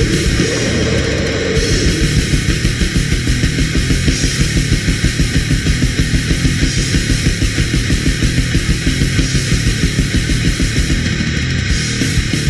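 Death/black metal recording: dense, heavily distorted guitars over a fast, even drumbeat of about five hits a second.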